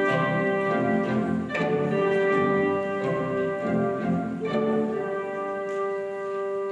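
Instrumental music: a slow melody of long held notes, the last one sustained for several seconds.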